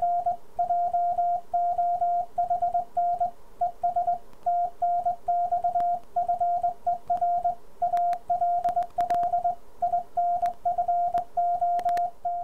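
Morse code hand-sent on a Begali Spark straight key, heard as the Ten-Tec Orion transceiver's sidetone: one steady beep tone keyed on and off in uneven dots and dashes. A few sharp clicks come in between.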